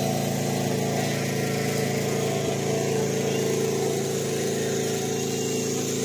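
A small engine running steadily: a constant, even hum.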